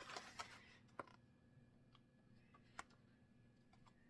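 Mostly near silence as a book page is turned, with a short paper rustle at the start. A few faint, single clicks from handling the book follow, about a second in and near three seconds.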